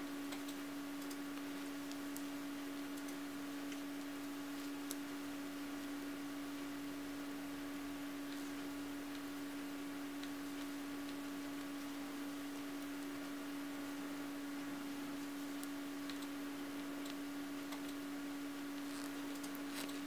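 A steady hum with faint, scattered clicks of metal knitting needles being worked.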